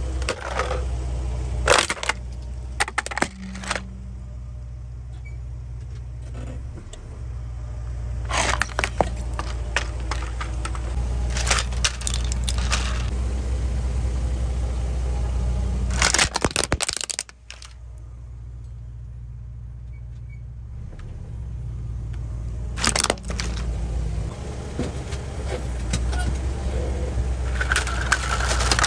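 Hollow plastic toy vehicles cracking and snapping as a car tyre rolls over and crushes them, in several separate bursts a few seconds apart, over the low steady rumble of the car's engine.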